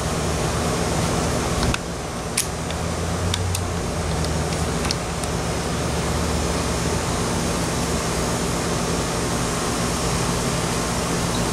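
A steady mechanical hum with hiss, with a few faint clicks in the first five seconds.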